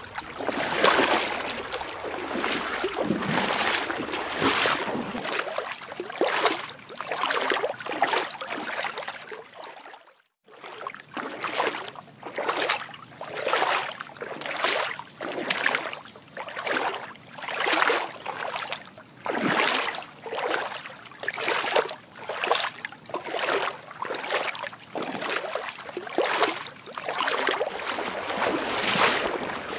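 Water sloshing and lapping, swelling and fading in a steady rhythm about once a second, cutting out briefly about ten seconds in.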